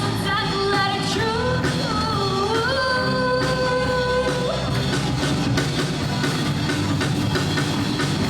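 Live rock band playing: a held, gliding melody line over drums and bass guitar for about the first four and a half seconds, then the drum kit comes to the fore with steady hits under the band.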